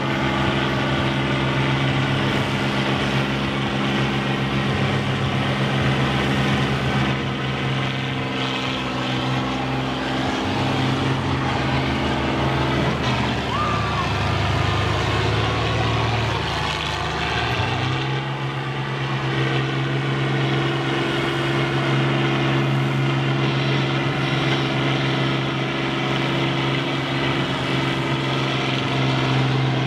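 Combine harvester engines running steadily in the derby arena, a deep even drone; for a few seconds in the middle the pitch wavers and shifts as the machines maneuver, then settles back to a steady note.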